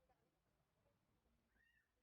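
Near silence, with a very faint high-pitched tone starting near the end.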